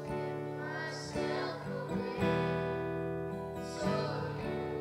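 Acoustic guitar played with slow strummed chords that ring on between strums.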